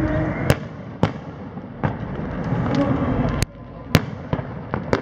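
Aerial fireworks shells bursting: a string of sharp bangs, about seven in five seconds, the loudest two close together past the middle, over a continuous rumble.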